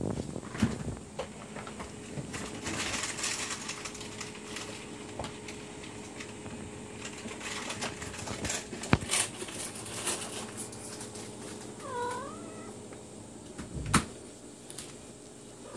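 Hairless kittens scuffling and rustling on a fleece mat while they nurse, with one short mew from a kitten about twelve seconds in. A few sharp clicks, the loudest near the end.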